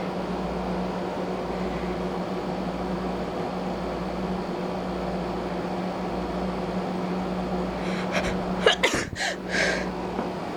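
Steady background hum, then about eight seconds in a person sneezes: one sharp loud burst followed by a few shorter bursts of breath.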